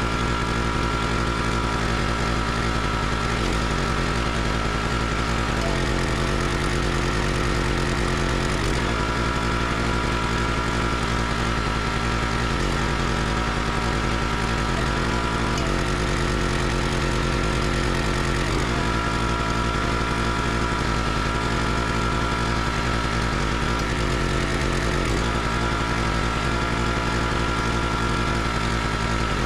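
Small gas engine of a County Line 32-ton hydraulic log splitter running steadily, its note shifting several times as the ram pushes logs through the splitting wedge under load.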